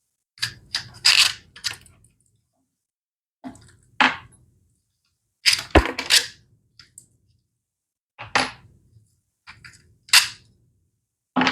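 Hard plastic and metal parts of a broken 3D-printed PETG motor clattering and clicking as they are handled and taken apart. The sharp knocks come in short clusters every second or two.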